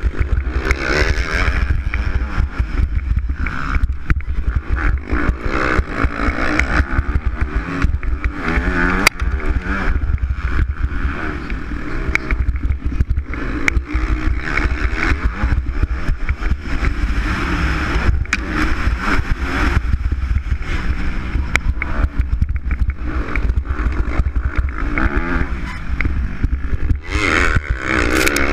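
Motocross bike engine on the camera rider's own bike, revs rising and falling through the race, heard through an onboard camera's microphone with heavy wind buffeting and knocks from the rough dirt track.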